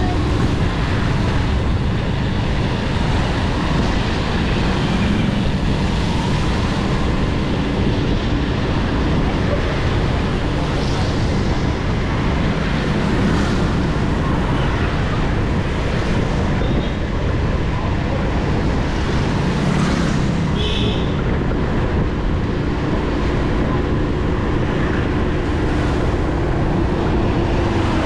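Street noise on a rainy walk: a steady hiss and low rumble with motor traffic, and an engine hum near the end.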